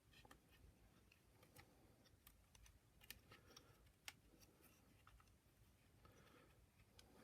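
Near silence with faint scattered clicks and small scrapes of plastic parts being handled, as the seal is eased away from the vacuum brush roll.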